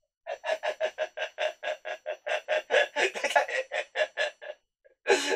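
A man laughing: a long run of even "ha-ha-ha" bursts, about five a second, stopping about a second before the end.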